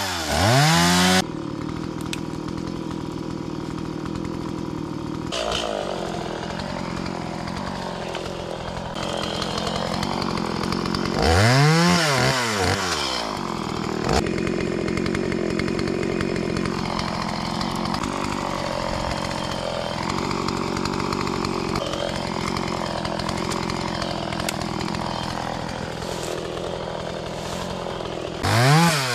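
Two-stroke gas chainsaw idling while cutting up brush branches, with the engine briefly revved to high speed and back down three times: at the start, about twelve seconds in, and near the end.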